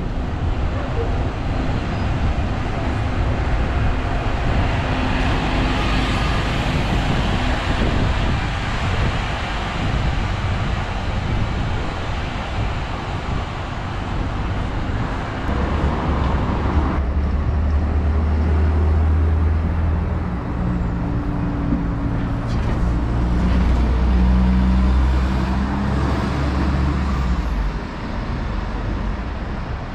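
City street traffic with buses passing: engines running and tyres on the road. A bus engine's low, steady hum is loudest in the second half.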